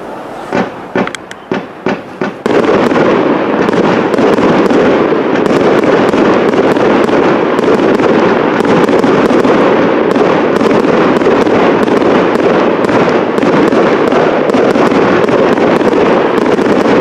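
Fireworks display: a handful of separate bangs in the first couple of seconds, then from about two and a half seconds in a dense, unbroken rattle of many small reports that keeps up steadily.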